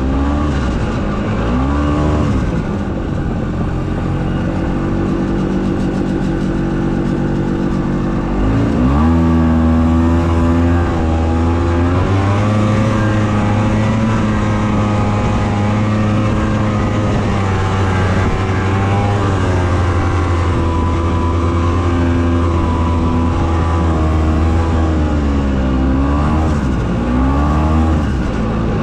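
Ski-Doo Tundra snowmobile engine running under way, its pitch rising and falling repeatedly as the throttle is worked.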